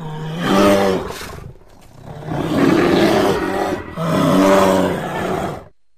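A bear roaring three times in deep, drawn-out roars, the last cutting off abruptly shortly before the end.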